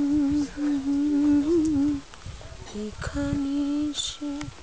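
A woman humming a slow tune in long held notes, close to the camera's microphone, breaking off for about a second midway before humming on.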